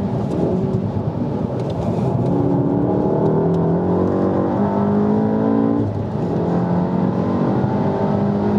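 A Volkswagen Golf R's turbocharged 2.0-litre four-cylinder engine running hard at track speed, heard from inside the cabin. Its pitch steps up and down a few times as the revs change.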